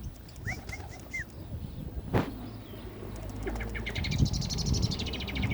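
Common blackbird singing: a few short whistled notes in the first second, then, from just past halfway, a rapid high twittering run. A single sharp knock about two seconds in.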